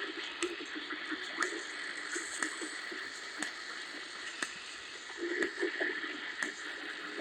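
Hiss and static from a radio receiver tuned to a broadcast carrying no program, with faint indistinct sound under the noise and a short click about once a second.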